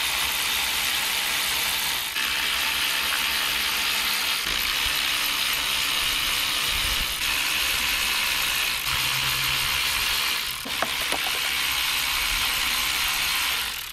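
A ratchet wrench running almost without a break as it spins out the already-loosened bolts of a school bus's front hub seal housing, with short pauses between bolts.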